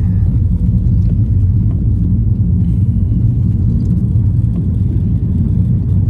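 Car driving at road speed, heard from inside the cabin: a steady low rumble of engine and tyre noise.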